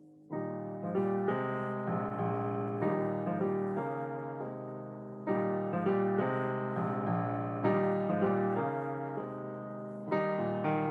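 Piano music begins just after the start, with phrases opening on louder chords several times.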